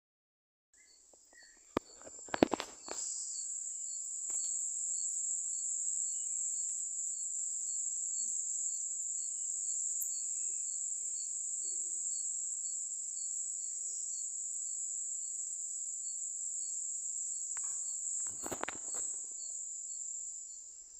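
Crickets chirring steadily in a continuous high-pitched trill, with a few knocks of handling noise about two seconds in and near the end.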